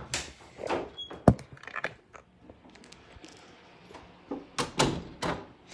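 Handling noise from a phone being moved about: a few sharp knocks and clicks, one about a second in and several close together near the end, with soft rustling between.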